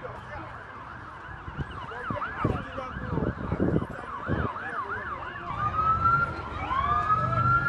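Police sirens sounding: a fast yelp sweeping up and down a few times a second, then, about two-thirds of the way in, long rising wails from more than one siren overlapping as the sound grows louder.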